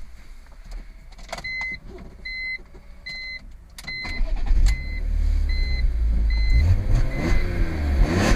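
BMW E46 M3's S54 straight-six starting about halfway through and settling into running, with a rise in revs near the end. A dashboard warning chime beeps steadily, about once every 0.8 s, before and during the start.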